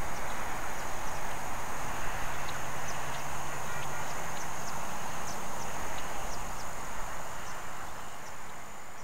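Outdoor field ambience: a steady high-pitched insect trill over a constant broad hiss, with scattered short high ticks. It fades out near the end.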